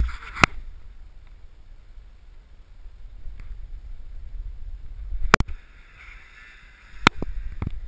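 Low, gusty rumble of wind on the snowmobile-mounted camera's microphone, with a few sharp knocks against the camera: once early, then around five seconds in and twice near the end.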